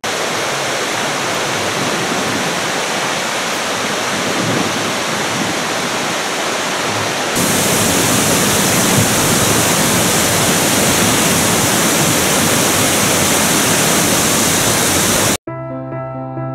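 Waterfall: a steady, loud rush of falling water that steps louder and brighter about halfway through, then cuts off abruptly near the end into soft piano music.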